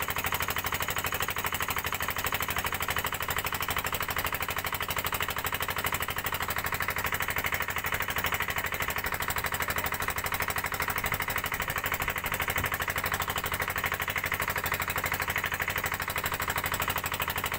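A small boat engine running steadily: a rapid, even chugging of closely spaced knocks that never changes pace.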